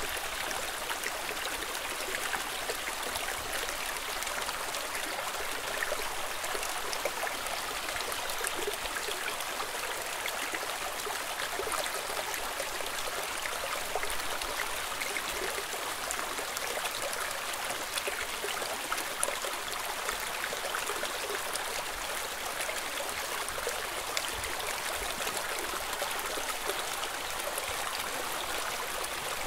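A small stream running and trickling steadily, its babble of water flowing over stones carrying mostly higher splashy sounds, with little deep rumble.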